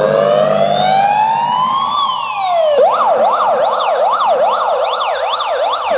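Siren sound effect played loud through a Billboard Bluetooth boombox speaker: a slow wail rising for about two seconds and falling again, then switching to a fast yelp that swings up and down about two and a half times a second.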